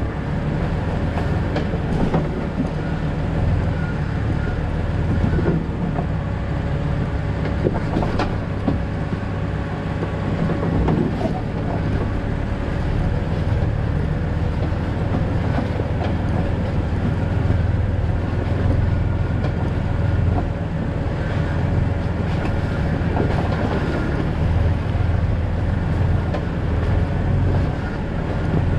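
2000 Jeep Cherokee XJ driving along a backcountry road: a steady low engine and road rumble, with a few short knocks and rattles from the bumps.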